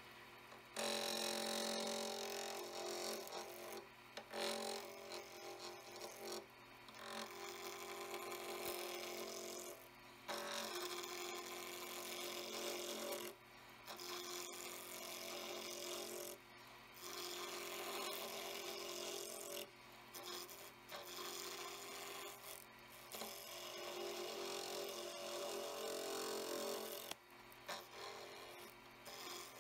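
A freshly sharpened 3/4-inch Robert Sorby skew chisel shaving a square wooden blank round on a spinning lathe: a rough scraping cut in passes of two to three seconds, with short breaks between them. The blank is not yet fully round, so the skew is still taking interrupted rounding cuts.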